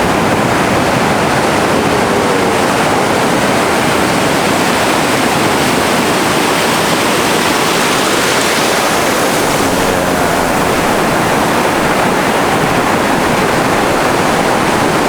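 Steady, loud rushing of sea waves washing onto a stony shore, mixed with wind.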